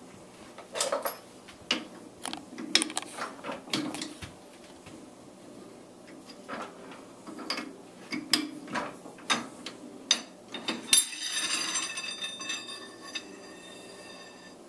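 Metal-on-metal clanks and clicks as a chuck key is worked in a metal lathe's four-jaw chuck and steel tools are handled and set down. Near the end one clang rings on for a couple of seconds.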